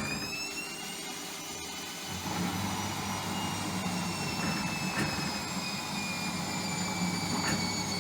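Hotpoint washing machine's drum motor whining as the drum speeds up. The pitch levels off within the first second and then slowly sinks, and a louder rumble of the tumbling drum and load sets in about two seconds in, as the machine distributes the load.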